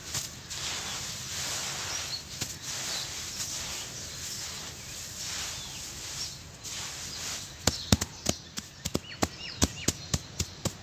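Hands crumbling and rubbing dry, gritty grey dust on a floor: a soft scratchy crunching that swells and fades in waves. In the last three seconds about a dozen sharp taps follow as the fingers strike the powder.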